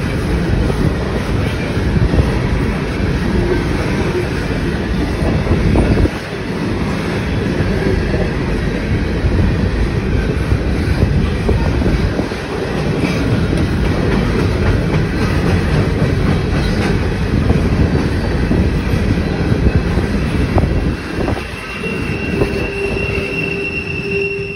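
Freight train of hopper cars rolling past close by: a steady heavy rumble and clatter of steel wheels on the rails. Near the end a steady high-pitched wheel squeal comes in.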